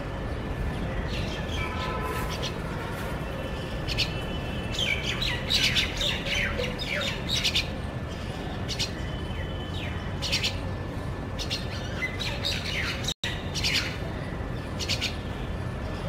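Common myna calling: a busy string of harsh squawks, chirps and quick downward-sweeping notes, starting about a second in and thickest in the middle, over a steady low background rumble.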